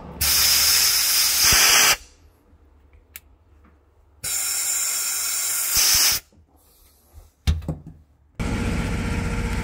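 Handheld spot sandblaster with a recovery cup, pressed onto rust on a van's steel cargo floor, firing two hissing blasts of compressed air and grit of about two seconds each, blasting the rust down to bare metal. A few light clicks follow, then a steady machine-like running sound with a low hum starts near the end.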